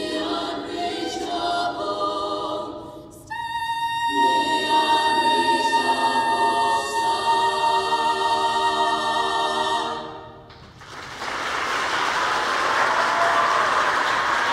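Choir singing the closing phrases, then after a short break holding one long final chord for about six seconds before it fades away. A steady rushing noise follows from about eleven seconds in.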